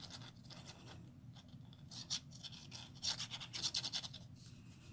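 Fine-tip glue bottle nozzle scratching lightly across cardstock as glue is laid along a paper tab, in faint short strokes with a quicker run of them about three seconds in.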